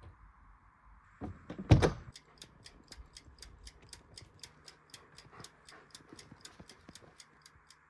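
A single loud knock about two seconds in, then a faint, fast, even ticking, about five ticks a second.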